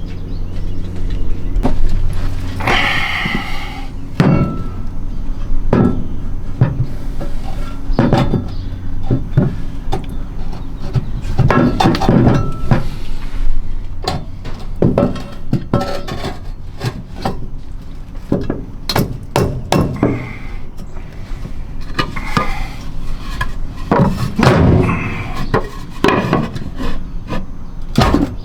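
Irregular knocks, clanks and scraping of a metal step frame being handled and worked into its mounting, with a low steady hum that fades after about four seconds.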